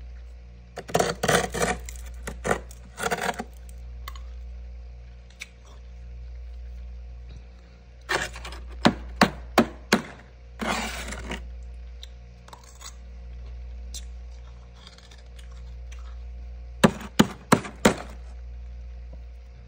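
A spoon scraping and chipping at thick frost in a small freezer compartment: several short bursts of scraping with quick runs of sharp taps, over a steady low hum.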